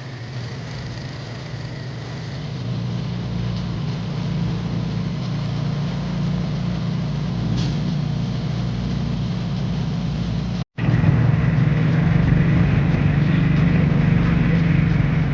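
Steady low rumble of a motor vehicle's engine and road noise. It cuts out for an instant about ten seconds in and comes back louder.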